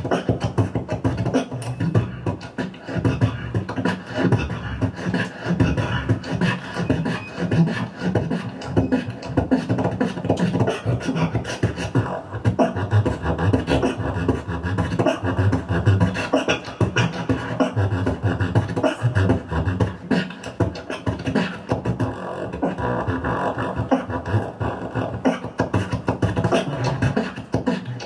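Solo beatboxing into a cupped handheld microphone: an improvised routine of quick, dense drum-like hits with heavy bass, kept up without a break.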